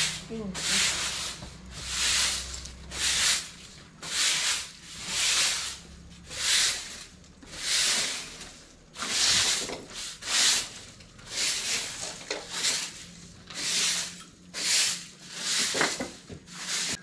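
A long-handled broom sweeping a concrete floor in regular scratchy strokes, about one a second.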